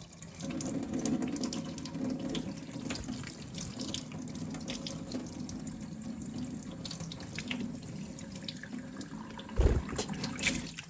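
Water running steadily from a tap, with small splashes and drips ticking through it as a budgie bathes under the stream. A louder splash comes near the end.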